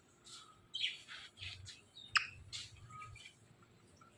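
Ringneck parrot giving a few short, scattered chirps and squawks, with one sharp chirp about two seconds in.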